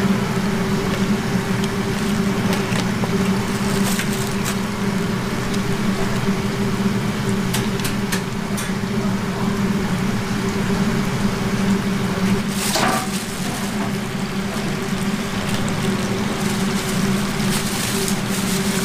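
Steady low hum of commercial cooking equipment, with a few light metallic clicks and clinks scattered through, loudest about two-thirds of the way in.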